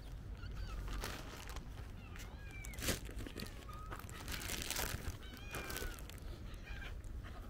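Cats meowing faintly now and then over crunching and rustling noises, with a sharp click about three seconds in.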